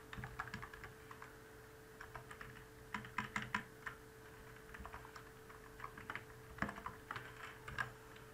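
Computer keyboard being typed on, short runs of keystrokes with brief pauses between them, over a faint steady hum.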